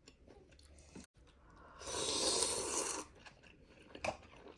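Close-up eating sounds: faint mouth clicks and chewing, then about two seconds in a loud rasping eating noise that lasts about a second.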